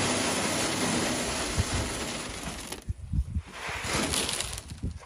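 Pelleted cattle feed poured from a plastic bucket into a plastic creep feeder hopper: a steady rush of pellets, easing off a little under three seconds in, then a second, shorter pour.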